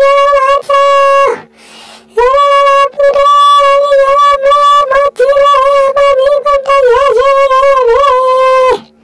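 Cartoon sound effect for icing squeezed from a giant piping bag: a loud tone like a wind instrument, held on one high pitch. It comes in long stretches, with a short gap about a second and a half in and a few brief breaks, and wobbles in pitch near the end.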